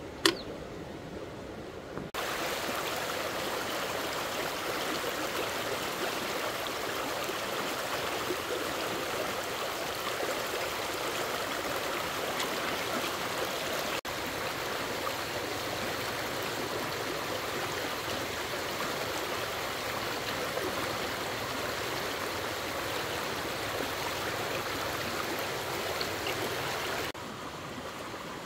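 Fast-flowing stream water rushing in a steady, even wash, louder from about two seconds in until near the end, with a single sharp click at the very start.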